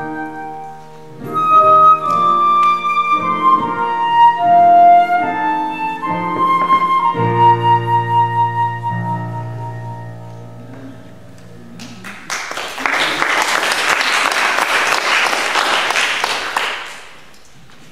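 Flute and piano playing the slow closing phrases of a hymn arrangement, ending on a held chord. About twelve seconds in, applause breaks out and lasts some five seconds.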